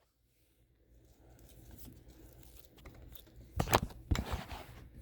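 Slime being squished and stretched by hand, crackling and popping, with two louder bursts of crackle a little past the middle.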